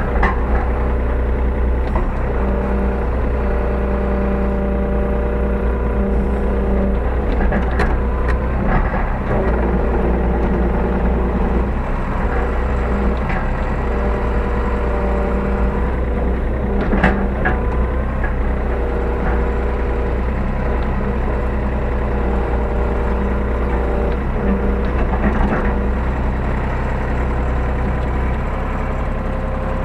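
Hyundai R35Z-9A mini excavator's engine running steadily, heard from inside the cab, with pitched tones that come and go as the machine works and a few short knocks, the sharpest about seventeen seconds in.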